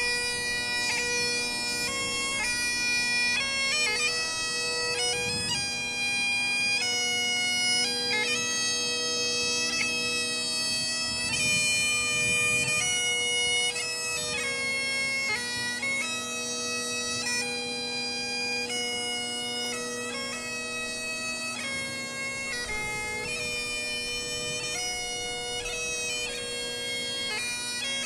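Solo Great Highland bagpipe playing a melody on the chanter over its steady, unbroken drones.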